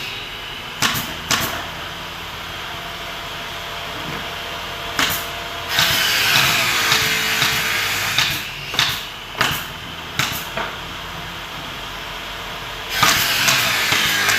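Woodworking and building noise: irregular sharp knocks over a steady hum, with stretches of louder rushing noise about six seconds in and again near the end.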